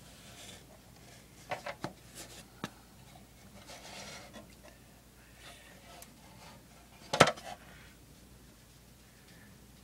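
Handling noise from a plastic scale-model body being picked up and turned over: a few light clicks and knocks, some soft rubbing, and one sharper knock about seven seconds in.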